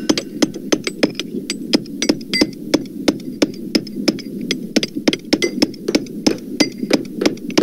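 Hammers striking over and over, several blows a second in an uneven, overlapping rhythm, over a steady hum. The hammer sounds have been shifted lower in pitch to make them deeper.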